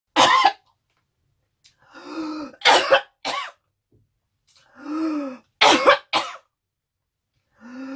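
A woman in a coughing fit: five hard coughs, mostly in pairs, with three rasping, gasping breaths drawn in between them.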